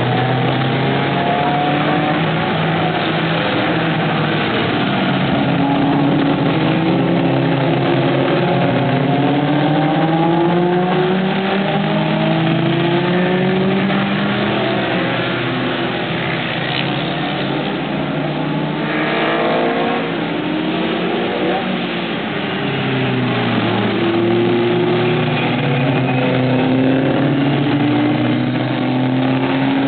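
A pack of Super Seven race cars' engines revving hard as they pass, with several overlapping engine notes climbing in pitch and dropping back at each gear change.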